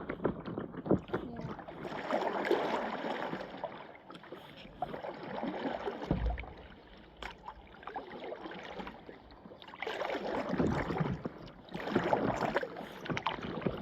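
Paddle blades dipping and pulling through lake water beside a stand-up paddleboard, with splashing in several short spells and quieter lapping and dripping between.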